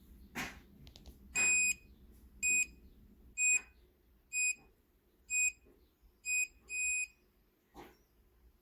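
Fingerprint padlock beeping: seven short electronic beeps at one pitch, about a second apart, the last two closer together.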